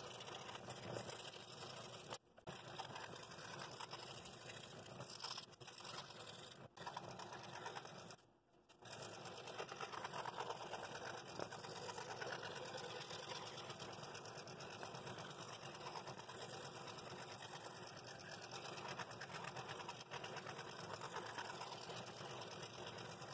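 Scroll saw running with its blade cutting through quarter-inch wood stock, a steady reciprocating sound as the piece is fed around a curved outside line, with a few brief gaps.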